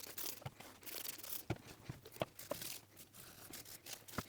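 Hand-cleaning of small metal slideway parts: faint rubbing and crinkling noises, broken by several sharp light clicks as the parts are handled.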